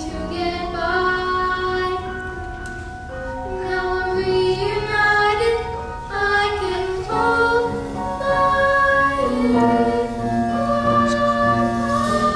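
Several voices singing slow, held notes together with instrumental accompaniment: a musical-theatre song.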